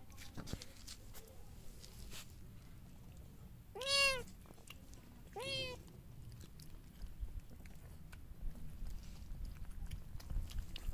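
A cat meowing twice, about a second and a half apart: two short calls that rise and then fall in pitch, the first louder and longer. Faint scattered clicks lie under them.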